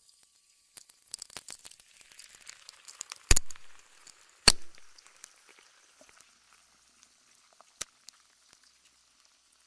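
Crackling, hissing noise full of scattered clicks, with two loud sharp cracks a little over a second apart near the middle and a smaller one later.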